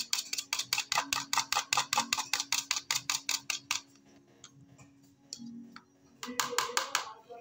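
Omelet mixture being beaten by hand in a plastic bowl: a fast, even clicking of the utensil against the bowl, about six strokes a second, that stops a little past halfway and starts again briefly near the end.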